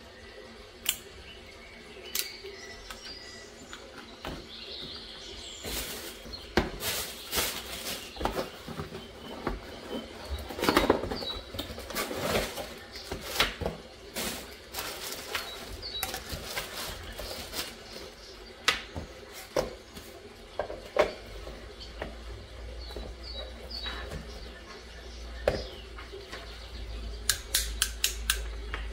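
Rustling, as of packaging being handled, with many light clicks and knocks of small objects, busiest in the middle; a low hum sets in about two-thirds of the way through.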